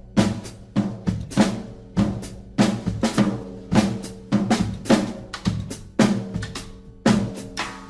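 Backing music with a busy drum-kit beat, snare and bass-drum hits over sustained low notes.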